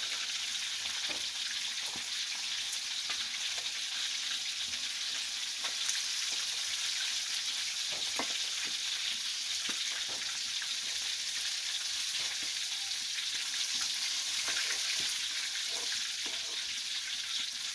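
Hot oil sizzling steadily in a karahi as food deep-fries, with scattered light clicks of a metal utensil against the pan.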